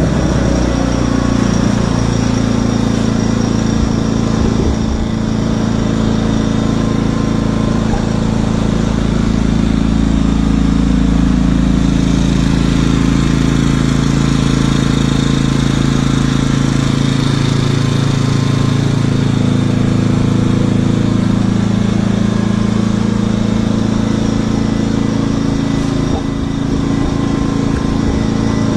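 WEN 56200i 2000-watt inverter generator with its 79.7 cc four-stroke OHV engine running steadily just after starting up, its engine note shifting slightly in pitch partway through.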